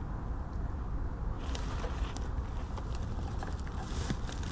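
Rustling of a ghillie suit and brush as the wearer shifts position on rock, starting about a second and a half in, over a steady low wind rumble on the microphone.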